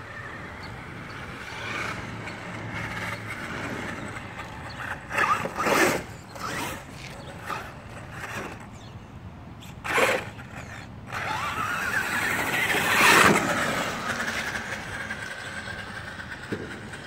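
Traxxas RC monster truck's brushless motor on a 4S battery whining as the truck speeds up and slows, in short loud bursts about five to six seconds in and again at ten seconds. Then a long rising whine builds to the loudest pass about thirteen seconds in.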